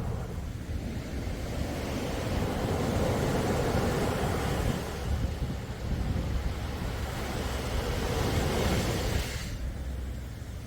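Sea waves washing ashore: a surge of surf that builds for several seconds and falls away sharply near the end, over a steady low rumble.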